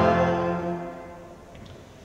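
Church organ's held chord ending and fading out over about a second in the church's reverberation, leaving quiet room tone.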